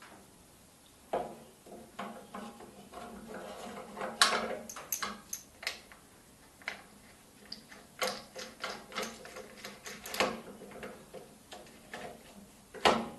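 Irregular metallic clicks, clinks and knocks as a bandsaw's roller blade-guide assembly is handled and fitted into the saw's guide arm, with a louder knock near the end.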